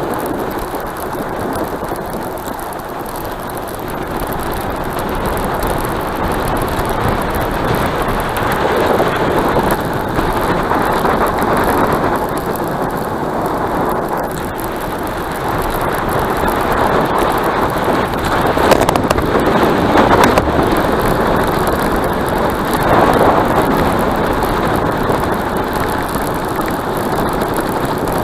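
Wind rushing over the microphone during a bicycle ride, a steady rumbling noise that swells in gusts several times.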